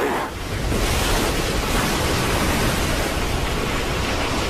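Heavy surf: a big wave breaking and rushing, heard as a steady, loud, even wash of noise.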